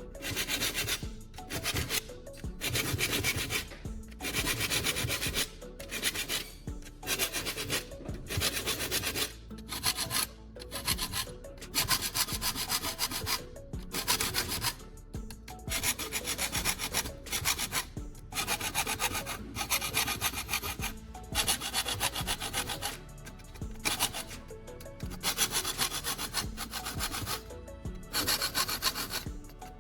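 Metal hand file scraping over the teeth of a folding saw blade in repeated strokes, about one a second with short breaks between them, as the teeth are filed sharp.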